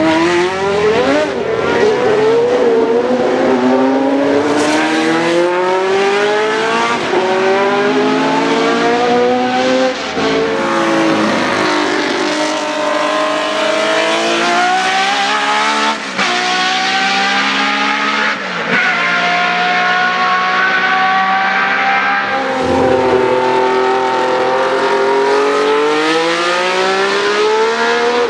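Historic Formula 1 car engines at high revs, accelerating hard: the pitch climbs steadily, then drops back at each upshift, several times over.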